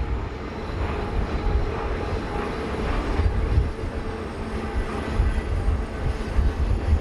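Train running past, a steady low rumble.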